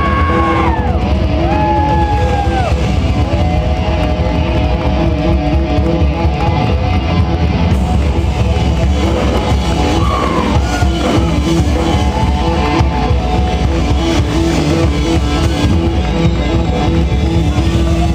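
Live rock band playing loud and steady: drum kit and electric guitar, with a few long sliding notes over the top near the start and again about halfway through.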